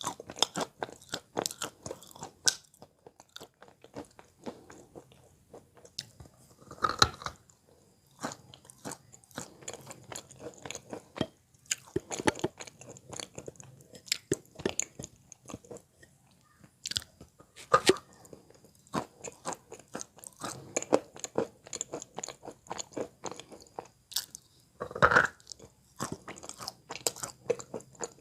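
Wet Belogorye chalk being bitten and chewed close to the microphone: a steady run of crunches, with a few louder bites every five or six seconds.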